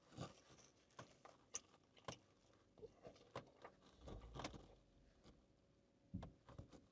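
Faint mouth sounds of a man biting into and chewing a slice of pizza: scattered soft clicks and wet ticks, otherwise near silence.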